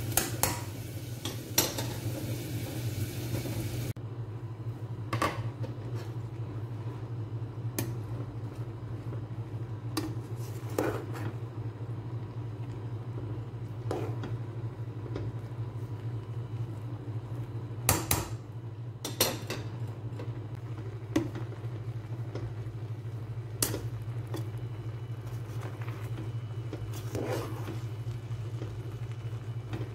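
A spatula clinking and scraping against a stainless steel pot as cooked rice is turned and fluffed, a sharp clink every few seconds over a steady low hum. A hiss in the first few seconds stops abruptly about four seconds in.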